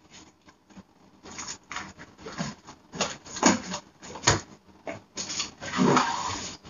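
Things being rummaged through on a cabinet shelf: irregular rustling and rubbing of boxes and bags, with a sharp knock about four seconds in.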